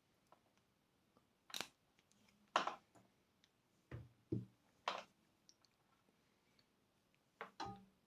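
Scattered clicks and knocks, about seven, some in quick pairs: small parts and wiring being handled while hooking up an intercom's power supply.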